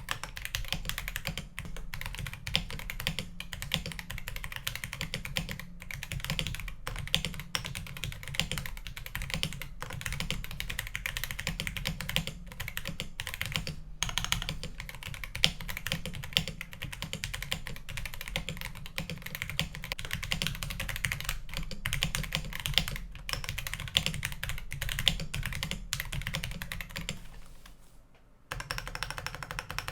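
Continuous typing on a Rama Works U80A mechanical keyboard fitted with stock Kailh Box Cream linear switches in a POM plate, under XMI Classic Beige keycaps, giving dense, rapid key clacks. The typing stops for about a second near the end, then starts again.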